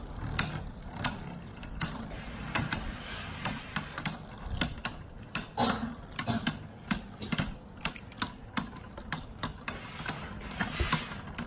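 Two Beyblade Burst tops, Wild Wyvern and Lost Longinus, spinning against each other in a plastic stadium. Sharp clacks sound each time they collide, about two a second at irregular intervals.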